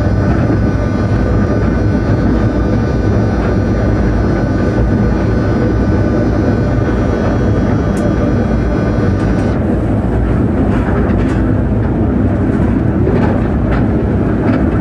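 Cab interior of a Škoda-built class 363 electric locomotive running at speed: a steady loud rumble of wheels and running gear, with a whine of several steady tones that cuts off about nine and a half seconds in. After that, a few sharp clicks over the rumble.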